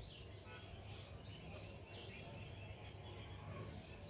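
A few short bird chirps over steady background noise with a low hum.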